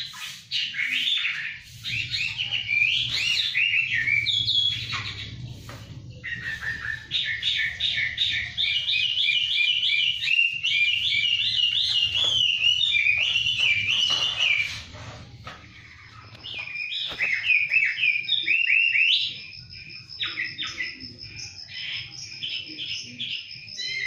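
Caged songbirds singing loudly in shrill, rapid chirping phrases, with a long unbroken run of quick repeated notes through the middle. In the last third a thin steady high tone runs beneath the song.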